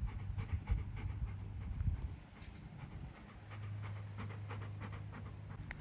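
Golden retriever puppy panting.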